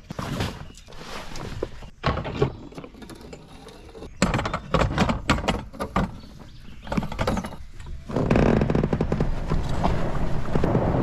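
Clunks, knocks and rustling as gear and a floor mat are handled in an inflatable raft, with a busy run of knocks about four seconds in. From about eight seconds in, a steady rough rushing noise takes over and is the loudest sound.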